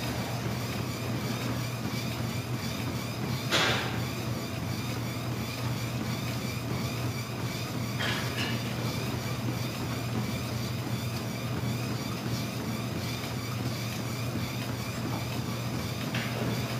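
Treadmill running at walking pace, its motor and belt making a steady hum under the walker's footfalls. A louder knock comes about three and a half seconds in, with softer ones later.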